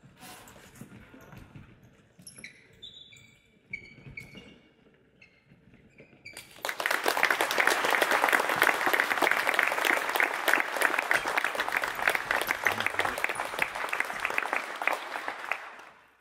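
A few faint, short high squeaks, then about six and a half seconds in a group starts applauding suddenly, with dense hand clapping that goes on for about nine seconds before fading out.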